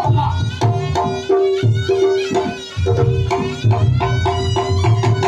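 Reog Ponorogo ensemble (tabuhan reog) playing: kendang drums beat a fast, busy pattern of strokes under a long held reedy melody tone.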